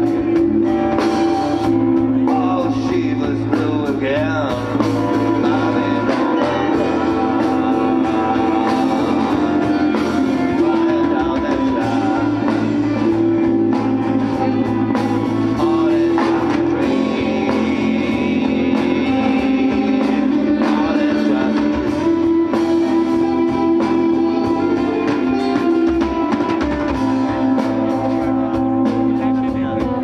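Live band playing: a man singing over electric bass and guitar.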